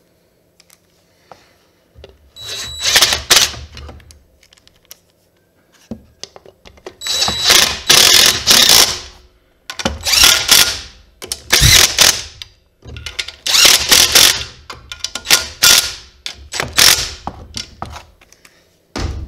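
Cordless impact wrench running in the valve cover screws on a Honda GXC160 overhead-cam engine, in about six bursts of rapid hammering, each one to three seconds long, as each screw is driven down and snugged.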